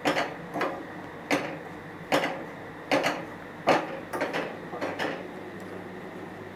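Wooden spatula scraping and stirring grated dry coconut and powdered sugar in a small pan: about eight short scraping strokes, roughly one every two-thirds of a second, stopping a little over a second before the end.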